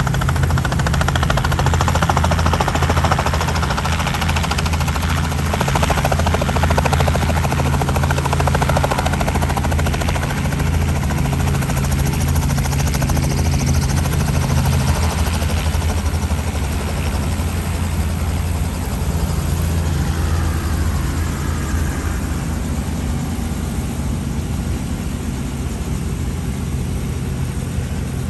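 Light Robinson helicopter running, its engine and rotors making a steady low throb with a rushing noise over it. The low tone shifts about halfway through.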